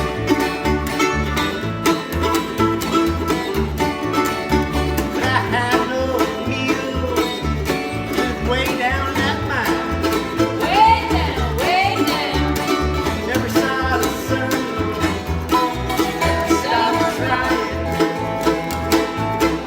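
Instrumental acoustic string-band music in a bluegrass style, with banjo and guitar over a steady beat. A sliding, bending melody line comes in around the middle.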